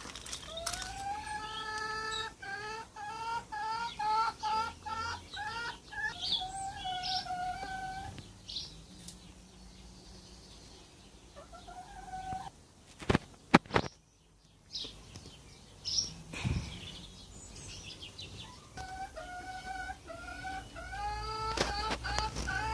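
A bird calling in runs of short, clear notes repeated about three a second, ending in a longer held note, then starting up again near the end. In the quieter middle there are a few sharp knocks.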